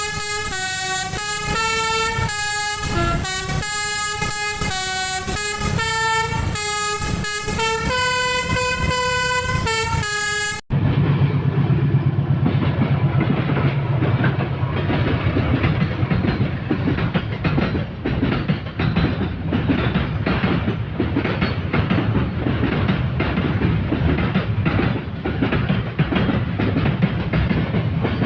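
A multi-tone telolet basuri horn plays a tune of stepping notes for about ten seconds, then cuts off abruptly to a passing train, its wheels clicking rhythmically over the rail joints.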